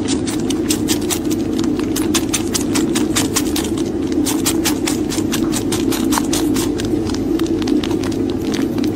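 Tabby kitten purring loudly right at the microphone: a steady, unbroken hum, with a quick run of soft ticks, about five a second, throughout.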